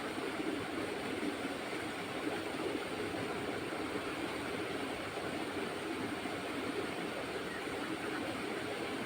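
Steady rushing of water flowing in a rice-paddy irrigation channel, an even noise with no breaks.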